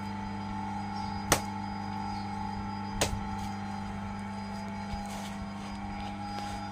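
Electric potter's wheel motor humming steadily. Two sharp slaps, about a second and a half apart, come from a lump of wet clay being beaten down, with a fainter one later.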